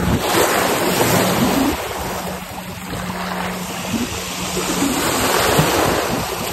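Small waves washing and breaking onto the shore, with wind on the microphone and a steady low hum underneath.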